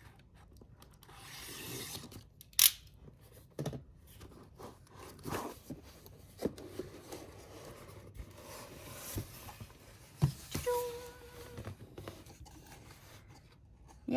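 Subscription box packaging being opened by hand: paper and plastic tearing, rustling and scraping, with scattered sharp clicks, the loudest about two and a half seconds in.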